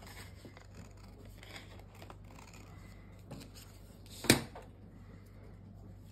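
Scissors snipping through sheets of patterned craft paper, with light paper rustling. There is a sharp knock about four seconds in, the loudest sound.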